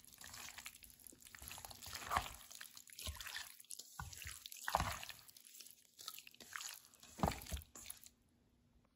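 Wet, irregular squelching of a gloved hand mixing sauce-coated spare ribs and black fungus in a stainless steel bowl. It stops suddenly near the end.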